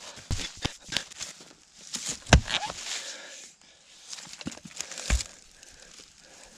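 Irregular knocks and scraping, crackling noises, with two heavier thumps about two and five seconds in.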